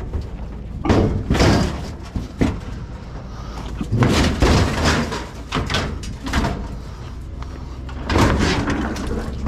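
A heavy scrapped appliance being lifted and shifted into place, with several bangs and scrapes: about a second in, a longer clatter around four to five seconds in, and another near the end.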